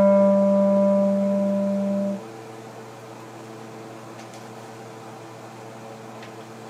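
Clarinet holding a low note that stops about two seconds in, leaving a steady low room hum.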